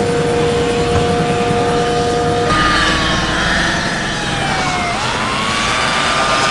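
Police car chase in snow: vehicle noise over a steady two-note tone for the first couple of seconds, then a police siren whose pitch falls slowly and rises again.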